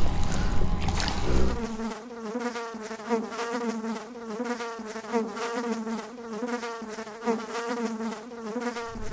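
A small quadcopter drone hovering overhead. From about a second and a half in, its propellers give a steady buzzing whine whose pitch wavers up and down as it holds position.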